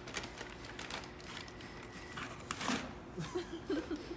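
Light rustling, crinkling and clicking of cardboard boxes and plastic packaging as a small dog noses among them, with a few brief soft voice sounds near the end.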